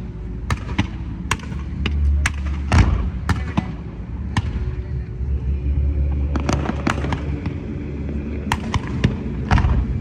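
Fireworks display: an irregular series of sharp bangs from aerial shells bursting, over a continuous low rumble, with the loudest bangs about three seconds in and near the end.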